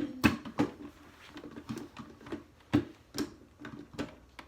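Irregular clicks and knocks of a glass jar being handled on a counter, with a few sharper knocks about a quarter second in and around three seconds.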